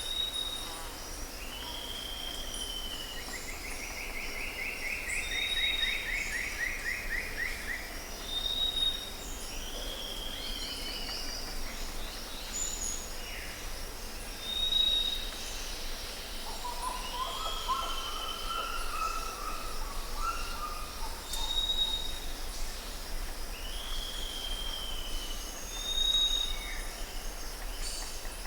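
Several wild birds calling: a short high whistle repeated every two to three seconds, falling slurred calls, a buzzy trill early on and lower warbled notes near the middle, over a steady high-pitched hiss and a low rumble.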